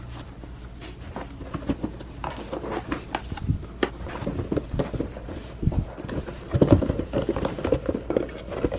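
Cardboard rubbing and scraping as a tight-fitting sleeve is worked off a cardboard box by hand, with irregular small knocks and taps of fingers on the box, busier in the second half.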